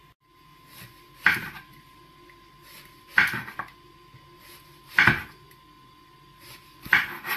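Chef's knife slicing through a zucchini into rounds and knocking on a wooden cutting board, four sharp cuts about two seconds apart.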